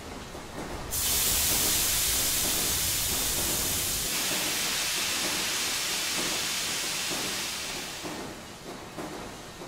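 Steam hissing from a dry cleaner's hose-fed pressing iron. It starts suddenly about a second in, holds steady and loud for about seven seconds, then fades out.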